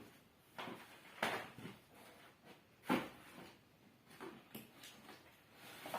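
Cardboard firework packets being handled: a few short knocks and scuffs as boxes are lifted out of a carton and set down.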